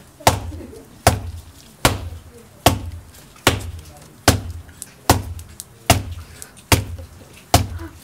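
A shoe with a wine bottle's base inside it struck heel-first against a concrete pillar, ten sharp knocks in a steady rhythm about one every 0.8 seconds, each blow driving the cork a little further out of the bottle's neck.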